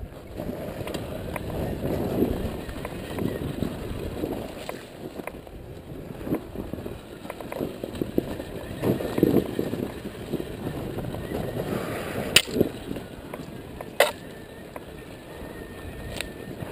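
Dirt bike ridden slowly over a dry, rocky dirt trail: an uneven rattling and crunching from the tyres and chassis, with a few sharp knocks in the last few seconds.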